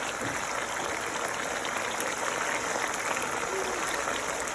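Thickened sweet-and-sour tamarind sauce with oil simmering in a saucepan, a steady fine crackling and bubbling.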